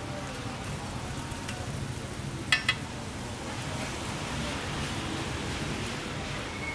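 Beef burger patty and buns sizzling on a flat-top steel griddle, with two sharp metallic clinks about two and a half seconds in.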